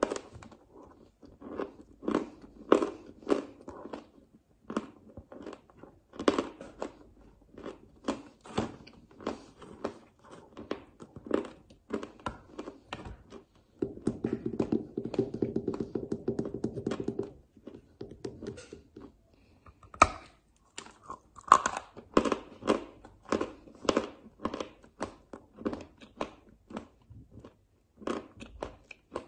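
Close-miked crunching and chewing of a lump of eating chalk: repeated crisp crunches from bites and chewing, with a denser run of chewing midway and one louder snap of a bite about twenty seconds in.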